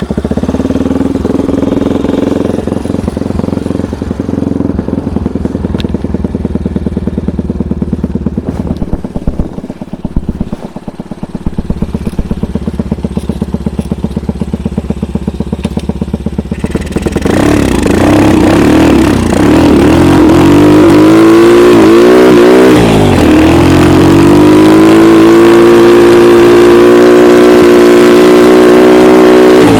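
Homemade snowmobile's engine running at low revs. About halfway through it revs up and then runs louder at steady higher revs, as the machine is ridden off.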